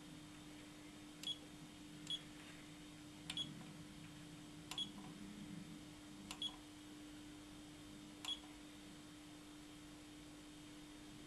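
Front-panel buttons of a Power-One Aurora grid-tie inverter pressed about six times, unevenly spaced, each press a click with a short high beep, as the display steps through its screens. A steady low hum runs underneath.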